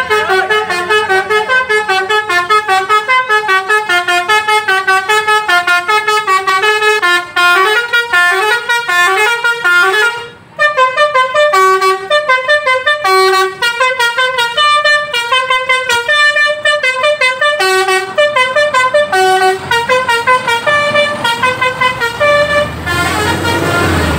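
Tour bus's basuri 'telolet' musical air horn playing a fast, loud melody of short notes stepping up and down, several a second, with one brief break about ten seconds in.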